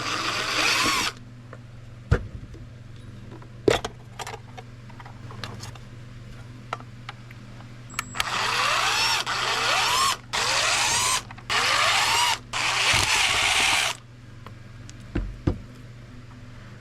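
Cordless power driver running in short bursts, its motor speeding up in each one, as it works screws out of the gauge cluster: one burst at the start, then four close together from about halfway through. A few sharp clicks and knocks from handling the parts fall in between.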